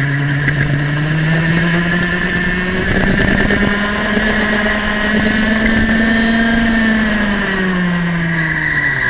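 Small single-cylinder two-stroke kart engine at full throttle. Its note climbs over the first few seconds as the kart accelerates to about 12,000 rpm, holds high, then falls near the end as the revs drop for the next corner.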